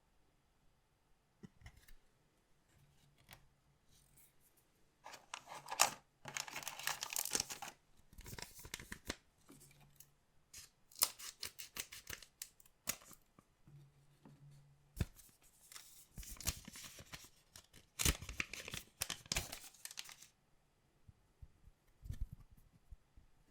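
Collectible trading-card pack wrappers being torn open and handled, in several separate bursts of tearing and rustling with sharp clicks between.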